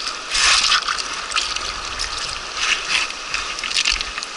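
Mountain river water rushing steadily over a shallow gravel bar, with several brief louder splashes.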